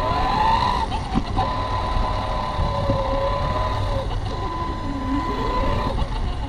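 A small RC car's drive motor whines as it drives over concrete. The pitch rises and falls as it speeds up and slows, over a steady high tone and a rough low rumble from the tyres.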